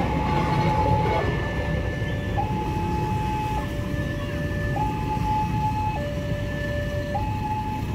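Railway level-crossing warning alarm sounding a steady two-tone signal, alternating a higher and a lower note about every second and a quarter, over the low rumble of idling motorcycle engines.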